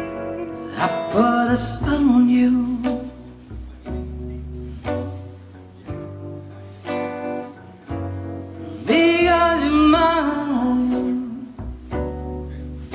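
Slow jazz-blues song playing through bookshelf speakers: plucked guitar and a low double-bass line, with a sung phrase near the start and another near the end.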